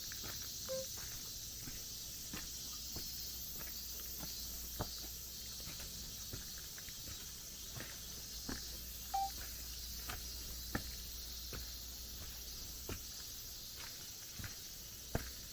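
Footsteps of a hiker on a forest trail, one step about every second, over a steady high hiss.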